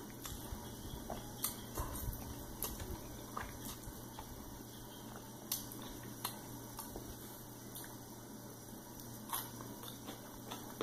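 Person slurping and chewing jjajangmyeon (Korean black bean noodles) close to the microphone: wet, squishy mouth sounds with scattered sharp clicks, over a faint steady low hum.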